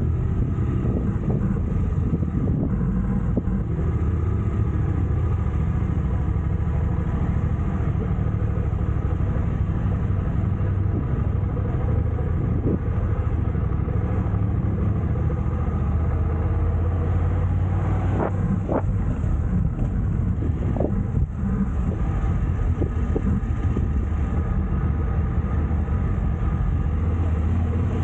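A motor vehicle's engine running steadily with a low rumble, with a few sharp knocks about two-thirds of the way through.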